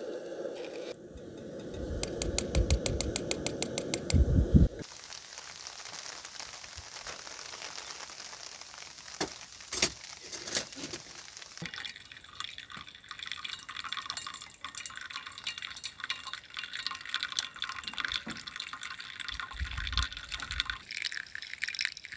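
Hot water poured from a kettle in a thin stream onto coffee grounds in paper pour-over filters, a steady trickling hiss from about halfway in. Before it, a few seconds of loud rustling with a run of rapid, even clicks that stop abruptly.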